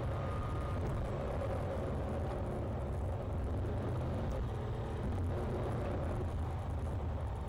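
Steady engine and road noise heard from inside a car cruising at town speed.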